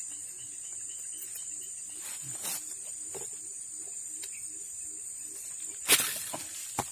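Steady high-pitched chorus of insects (crickets or cicadas) in swamp vegetation, with faint repeated low calls beneath it. A single sharp, loud knock or splash cuts in just before six seconds, and a smaller click follows near the end.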